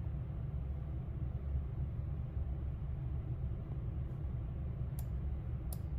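Steady low rumble of room background noise, with two faint short clicks near the end.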